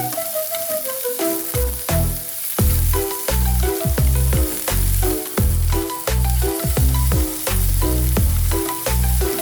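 Chicken frying in hot oil with a steady sizzle, under background music whose heavy bass beat comes in about a second and a half in.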